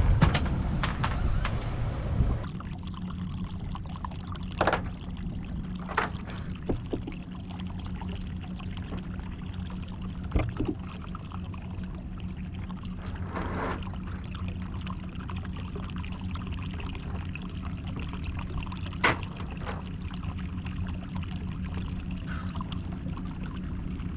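A boat's engine idling with a steady low hum while water splashes and trickles against the hull. A few short knocks sound now and then, with a gust of wind on the microphone in the first couple of seconds.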